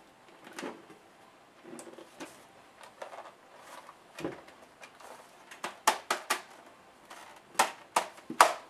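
Plastic case of an HP ZE4600 laptop knocking and clicking against the bench as it is handled and turned over: a few light knocks, then a run of sharper clacks in the last three seconds.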